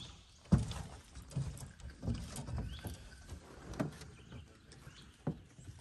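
Water lapping and slapping against the hull of a small fishing boat, with a handful of irregular knocks.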